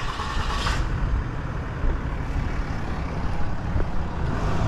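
Steady rumble of road traffic on a town street, with a brief louder hiss in the first second.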